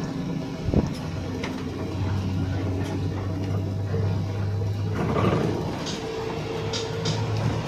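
A coach's engine and road noise heard from inside the cabin as a low steady drone. A single thump comes about a second in and a short rush of noise about five seconds in, and a steady higher tone joins near six seconds.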